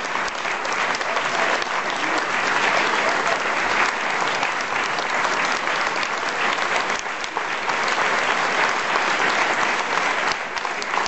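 Audience applauding: dense, continuous clapping from a concert crowd as the performers take their bow.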